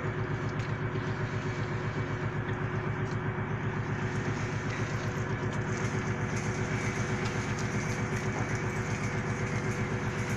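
Fishing trawler's diesel engine running steadily, a fast, even throb.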